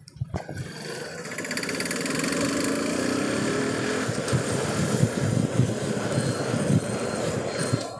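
Bajaj Pulsar NS200's single-cylinder engine running as the motorcycle rides along, heard from the rider's position. The sound comes in suddenly just after the start and stays steady.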